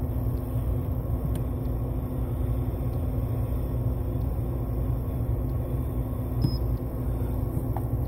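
HVAC air handler running, its blower drawing air through a return air grille in a steady low rumble with a faint steady hum.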